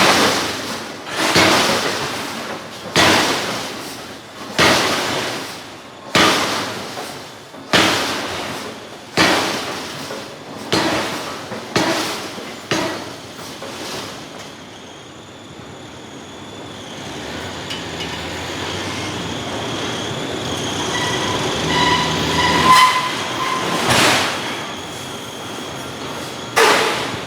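Hydraulic forging hammer striking hot steel: a run of about nine heavy blows roughly every second and a half, each ringing off. Then the blows stop and a steady machine noise with high squealing metallic tones takes over, and one more blow lands near the end.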